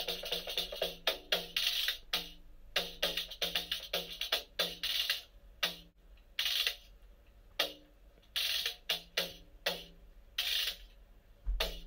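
Solo hand-drum playing, a Berber drum struck in an uneven rhythm, busy at first and thinning to spaced strokes in the second half. It stops abruptly just before the end.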